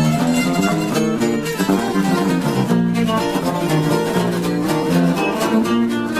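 Acoustic guitar playing requinto lead: quick runs of single picked notes over lower, longer-held accompanying notes.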